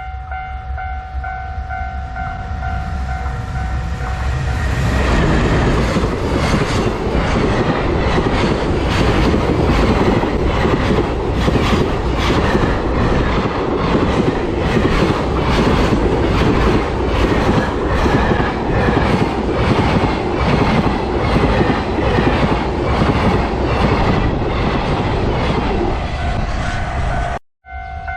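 Level-crossing warning bell ringing. About five seconds in, a JR Freight EF210 electric locomotive and its freight wagons pass close by, and their wheels clatter in a steady rhythm over the rail joints for the rest of the passage.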